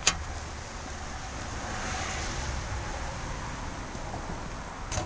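A single sharp click just after the start, then a steady outdoor rushing noise that swells in the middle and eases off again.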